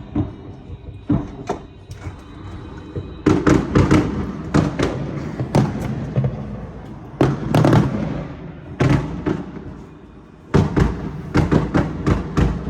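Fireworks going off in rapid runs of bangs and crackles: a few scattered bangs at first, then dense clusters about three seconds in, around eight seconds, and again from about ten and a half seconds.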